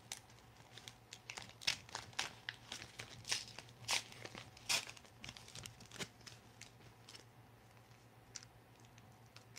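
Tape being pulled loose and packaging crinkling as a taped-up coin package is opened by hand: a quick run of sharp crackles and rips for about six seconds, then only a few scattered ones.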